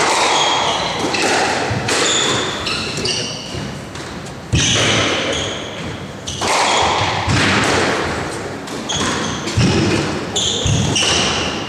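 Squash rally: the ball cracks off rackets and walls in sharp strikes every second or two, the loudest about halfway through. Between the strikes, players' shoes squeak briefly and high-pitched on the wooden court floor.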